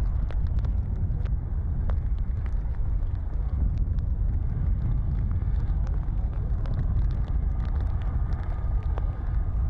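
Lava fountain of the Fagradalsfjall volcano erupting, a steady deep rumble with scattered sharp pops and crackles of spatter.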